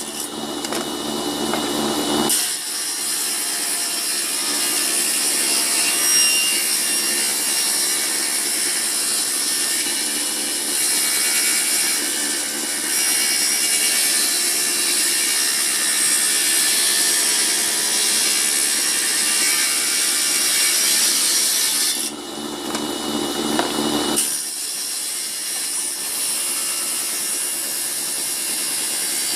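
Table saw ripping old wood: a loud, steady cutting hiss. Twice, at the start and again about three quarters of the way through, it gives way for a couple of seconds to a lower hum as the blade runs without cutting.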